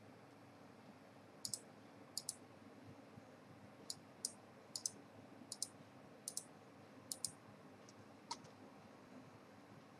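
Computer mouse button clicking, faint: about nine irregular clicks, several heard as a quick double tick of press and release.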